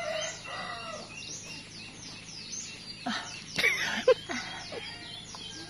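A small bird chirping over and over in short falling notes, about three a second, with a few louder short sounds about three to four seconds in.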